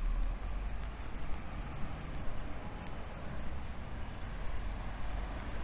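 Steady outdoor city ambience: a low rumble of wind on the microphone over a hiss of distant traffic on wet roads.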